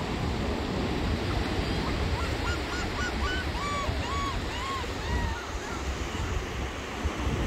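A gull calling a run of about ten short, arched notes that grow longer and lower in pitch toward the end, over steady surf and wind rumble on the microphone.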